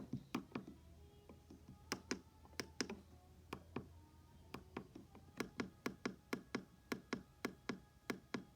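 Small plastic buttons on a weather radio being pressed over and over, to scroll through its state and county list. The clicks come unevenly at first, then settle into about three a second.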